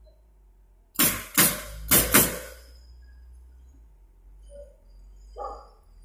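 Pneumatic nail gun firing four times in quick succession about a second in, driving nails through pallet slats into the wooden stringers, each shot a sharp bang.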